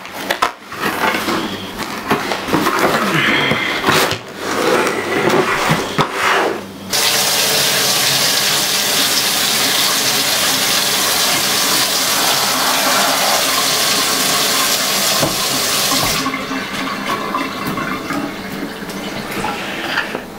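Crinkling and rustling of a paper package being handled. Then a kitchen faucet runs hard into the sink in a steady rush for about nine seconds, shut off abruptly.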